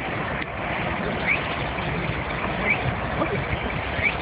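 Outdoor ambience: steady rushing noise, with a short rising chirp that repeats about every second and a half.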